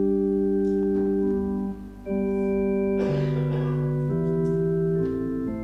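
Organ playing slow, sustained chords that move from one to the next, with a short break about two seconds in.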